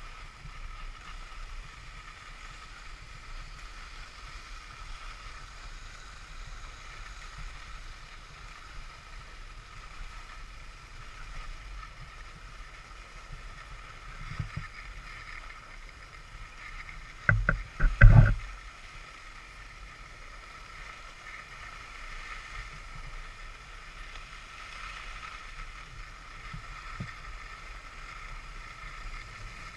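Skis running on groomed snow, a steady hiss and scrape picked up by a GoPro camera, with a quick cluster of loud knocks a little past halfway through.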